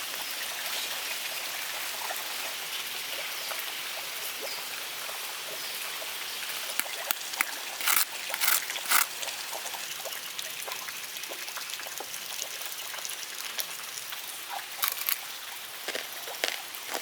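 Pork belly deep-frying in hot oil: a steady sizzle, broken about halfway through by a handful of loud sharp crackles.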